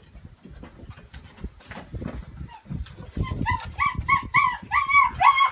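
Eight-week-old German Shepherd puppy crying in protest at being held for a nail grinding: thin high squeals from about a second and a half in, then a quick run of yelping whines, about three a second, growing louder toward the end.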